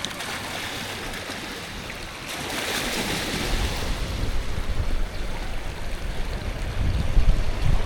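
Ocean surf breaking on the beach, with a wave crashing and washing in about two and a half seconds in. Wind buffets the microphone with a low rumble through the second half.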